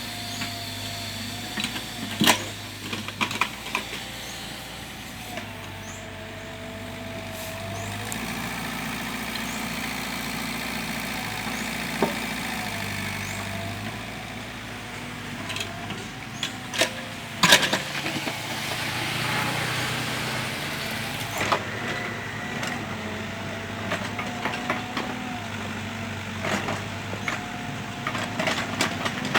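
Mini excavator engine running steadily while it works, with a thin wavering whine that drifts in pitch. Several sharp knocks and clanks break in, the loudest about two-thirds of the way through.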